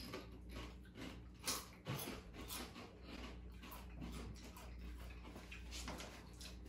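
Faint, irregular crunching of Doritos tortilla chips being chewed.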